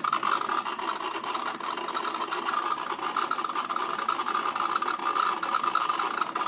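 Electric foot spa's built-in motor running, a steady buzzing rattle.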